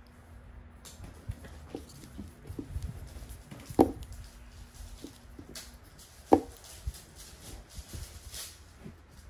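Small ticks and scratches from a mechanical pencil on paper over a wooden desk. Two sharp knocks come a little under four seconds in and again about two and a half seconds later.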